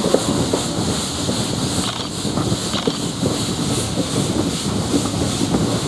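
BR Standard Class 4 2-6-4T two-cylinder steam tank locomotive working under steam, an even run of exhaust beats over a steady hiss of steam, heard from a carriage window along with wind and the clatter of the train on the rails.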